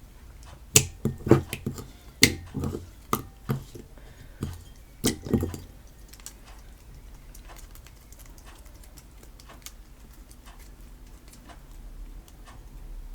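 Homemade PVA-glue slime being worked by hand: a run of sticky clicks and squelches with soft thumps for the first five seconds or so, then only faint, steady ticking.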